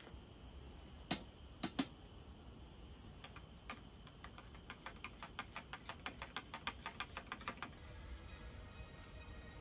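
Three sharp clicks about a second in, then a run of light, even ticks or taps that quickens to about five a second and stops near the end.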